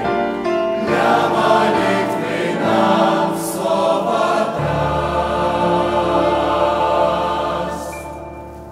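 Church choir singing the closing bars of a Russian hymn, settling onto a long held final chord that fades away over the last second or so.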